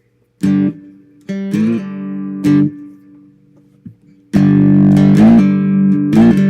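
Three-string cigar box guitar with a single-coil pickup, played through an amp with its tone knob turned down for a mellow sound. A few separate chords are strummed in the first couple of seconds, then steady strumming starts about four seconds in, with notes sliding in pitch.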